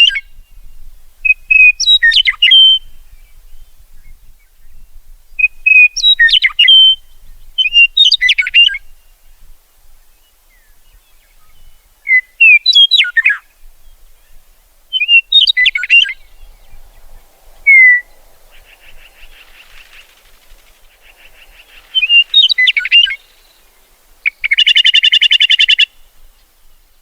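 Meadowlark singing: short, clear, slurred whistled phrases repeated every few seconds, ending with a harsh buzzy chatter near the end.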